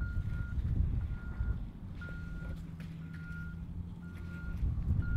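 Vehicle reversing alarm beeping about once a second, each beep a single steady tone about half a second long, over a low rumble.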